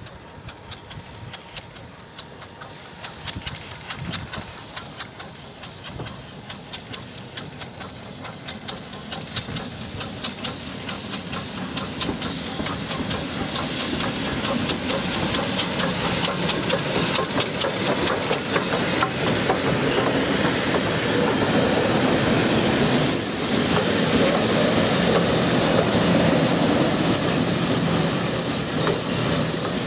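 LMS Ivatt Class 2MT 2-6-0 steam locomotive No 46521 and its coaches approaching and running past close by, growing steadily louder. Wheels clicking over the rail joints as the coaches roll past, with a high squeal from the wheels near the end.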